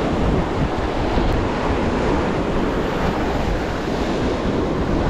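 Sea surf breaking and washing over shoreline rocks in a steady rush of foaming water, with wind buffeting the microphone.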